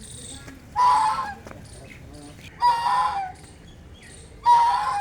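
Domestic duck quacking: three loud quacks, each about half a second long, spaced about two seconds apart.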